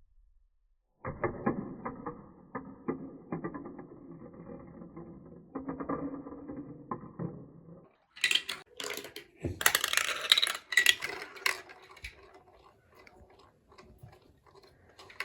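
Marbles rolling and clattering down a plastic toy marble run, a dense run of small clicks and rattles. About eight seconds in it changes to a brighter, sharper clatter of clicks, which then thins out to a few scattered ticks.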